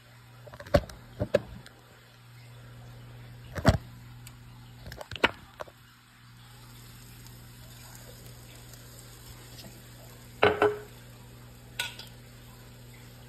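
Pancake frying in grapeseed oil under a glass lid: a soft steady sizzle with a low hum beneath it, broken by several sharp pops and clicks, the loudest pair about ten and a half seconds in.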